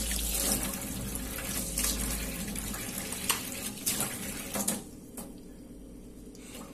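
Kitchen tap running into a stainless steel sink as a fish fillet is rinsed under the stream, with light splashes and knocks from the handling. The flow stops about five seconds in.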